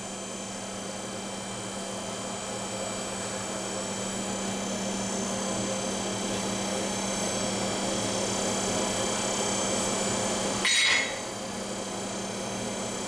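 Steady hum and rush of a running forge, growing slowly louder, then a single loud metallic hammer strike near the end.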